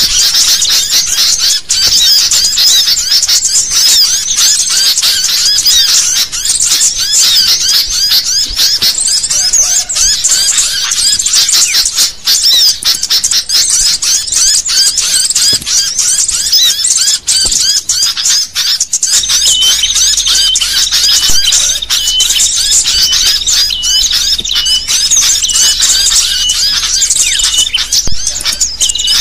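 A flock of sooty-headed bulbuls (kutilang) chattering noisily and without pause, many quick chirps and trills overlapping: agitated bulbul chatter played as a lure to draw bulbuls in. About two-thirds of the way through, a repeated short high note joins the chorus.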